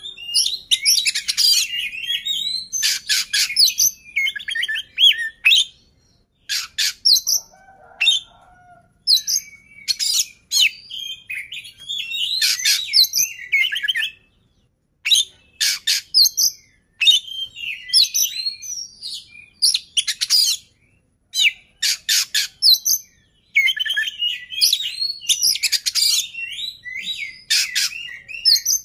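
Male oriental magpie-robin (kacer) in full song: loud, varied phrases of sharp clicking notes and rapid warbling, broken by short pauses.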